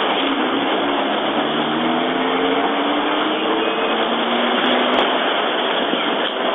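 Steady vehicle noise heard from inside a stopped car, with the engine note of a vehicle driving across in front drifting in pitch between about one and a half and four and a half seconds in.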